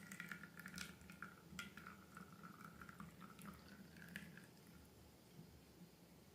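Faint wet squishing and sticky clicking of slime being worked by hand. It comes as a run of small crackles for the first few seconds, then fades almost to nothing.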